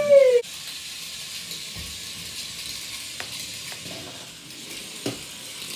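Zuru Robo Alive toy snake running across a tiled floor: a steady, faint hissing whir from its small motor and drive wheels, with a couple of light clicks.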